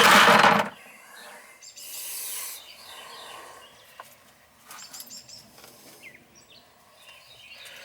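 Birds chirping, with a loud, brief rush of noise at the very start and a short high hiss about two seconds in.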